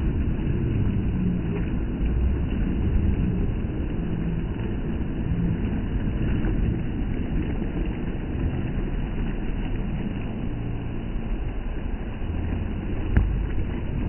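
Small sea waves washing up onto a sandy beach, mixed with a steady low rumble of wind on the phone's microphone. One brief knock near the end.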